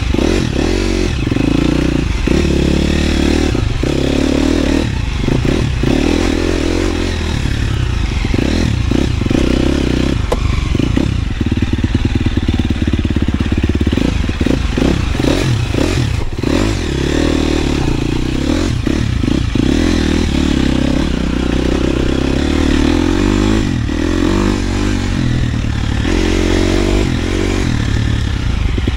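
KTM 250 SXF dirt bike's 250 cc single-cylinder four-stroke engine running under load as it is ridden, revs rising and falling, with frequent short knocks and rattles over rough ground.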